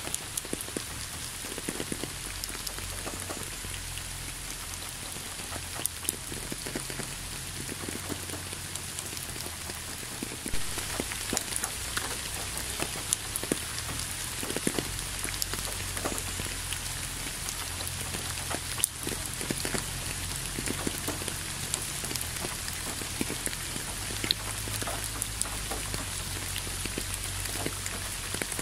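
Steady rain, with many separate drops ticking through the even hiss; it gets a little louder about ten seconds in.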